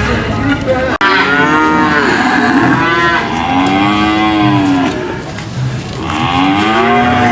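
Cattle mooing loudly: three long moos one after another, the first starting abruptly about a second in.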